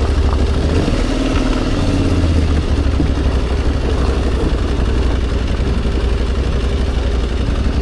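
Motorcycle engine running steadily with an even low throb.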